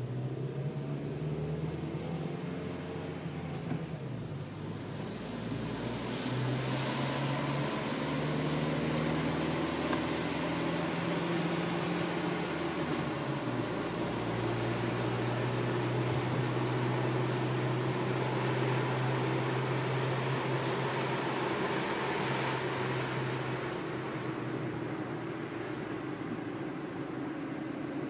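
Car engine and tyre noise heard from inside the cabin while driving, a steady low hum under road roar. The road roar swells a few seconds in as the car passes through a rock road tunnel and eases again near the end.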